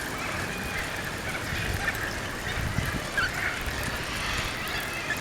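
Steady outdoor background noise with faint, short bird chirps scattered through it.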